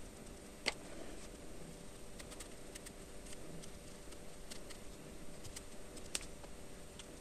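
Quiet handling sounds: a few faint, sharp clicks as fingers and a blue oil pastel work over a crocheted toy's eye, over a steady low room hum.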